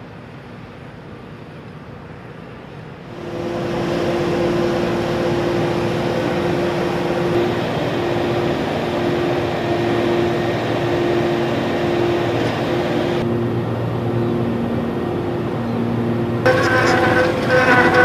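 Heavy diesel construction machinery running: a steady engine drone that jumps much louder about three seconds in, shifts twice more as the shots change, and carries a stronger engine hum near the end.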